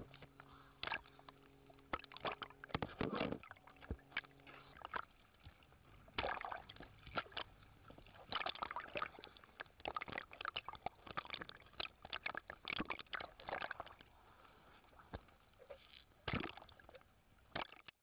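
Water sloshing and bubbling around an underwater camera during a night dive, in irregular clusters of crackles. A low steady hum with several tones runs through the first four seconds and then stops.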